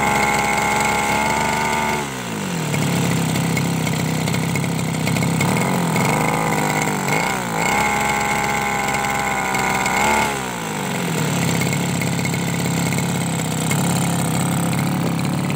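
Small two-stroke grass-cutter engine, rigged as a boat's outboard motor, revving up and dropping back several times. It rises at the start, falls back about two seconds in, climbs again around six to eight seconds, then settles about ten seconds in to a steadier, lower speed.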